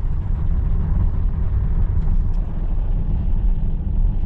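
A car being driven: a steady low rumble of road and engine noise that holds level throughout.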